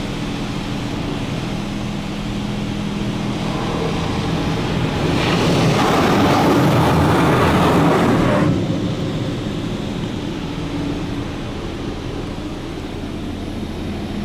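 High-pressure rinse jets of a touch-free automatic car wash spraying water over a truck, heard from inside the cab. The spray grows louder about five seconds in and drops back after about eight seconds, over a steady low hum.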